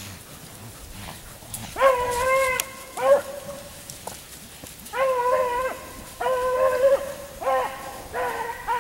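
Beagle baying on a rabbit's trail, long drawn-out bawls mixed with short chops, starting about two seconds in and repeating every second or so. The hound is picking up the cottontail's lost scent line again after a check.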